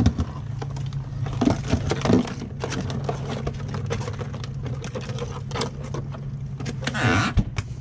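A boat's motor runs steadily at a low hum, with scattered clicks and knocks from live Dungeness crab shells clattering against each other and the sides of a plastic cooler.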